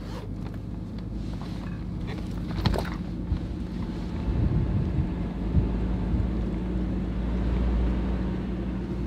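Toyota Prado four-wheel drive driving, its engine giving a steady low drone that grows a little louder in the second half, with a few short knocks and rattles from bumps in the track around the middle.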